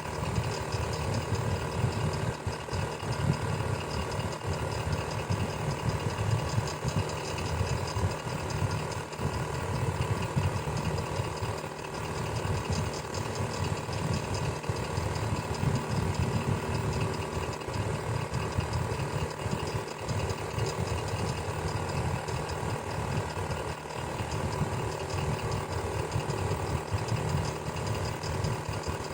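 Electric fan running steadily: a constant low rumble with faint steady hum tones above it.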